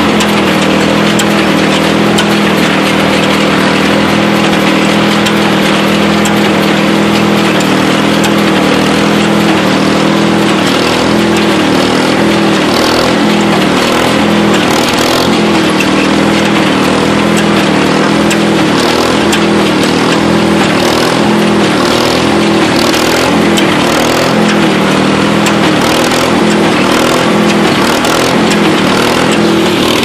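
Ford 8N tractor and the John Deere 24T baler's own mounted engine running steadily together while the baler picks up and bales hay. From about ten seconds in, a rhythmic clatter from the working baler recurs roughly once a second.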